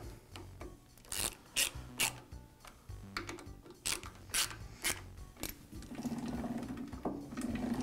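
Indicator block being tightened down on a Jet drill press quill: a series of short, sharp metallic clicks and small rattles, in two runs of three or four clicks each.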